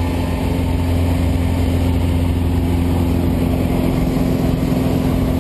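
Steady engine and propeller drone of a high-wing jump plane, heard from inside the cabin as it climbs to altitude.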